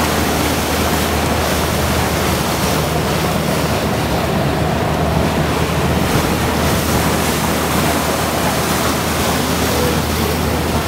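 Mitsubishi SH-60K helicopter hovering low over the sea: a steady low drone from its rotors under a constant rushing of wind and sea spray.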